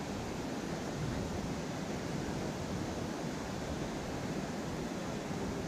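Steady, even rushing of a fast-flowing river.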